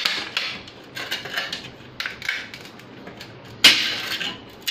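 Scattered knocks and clicks of an aluminium ladder's rails being fitted onto its wooden rungs and handled on a table. One louder, sharp knock with a short ring comes about three and a half seconds in.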